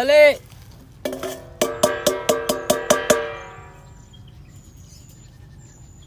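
A short shouted call, then a rapid run of about ten metallic strikes over some two seconds, each one ringing at the same pitch.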